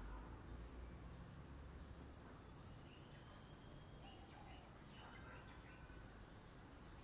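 Near silence: faint outdoor ambience, with a low rumble in the first couple of seconds and a few faint bird chirps.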